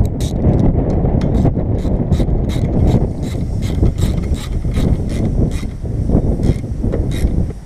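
Hand ratchet clicking in quick repeated strokes, about three clicks a second, while a wiper-arm nut is tightened, over a steady low rumble.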